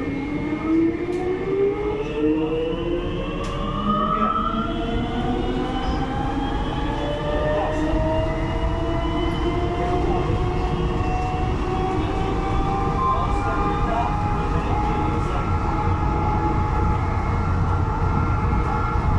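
Siemens VAL 208 rubber-tyred metro train accelerating, heard from inside the front of the car: the electric traction drive's whine rises in pitch for about the first ten seconds, then levels off at cruising speed over a steady running rumble.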